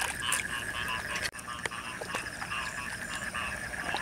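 A chorus of many frogs calling in a flooded rice paddy after heavy rain: a mating chorus. It is a dense run of short calls repeating several times a second over a steady high drone, with a few sharp clicks.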